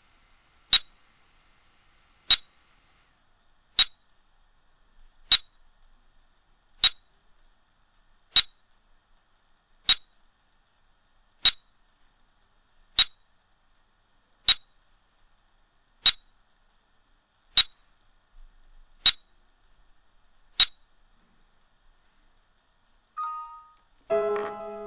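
Short high electronic beeps, evenly spaced about every one and a half seconds, from a quantum resonance magnetic analyzer running its scan. After the beeps stop, a brief chime sounds as the scan finishes, and piano music starts near the end.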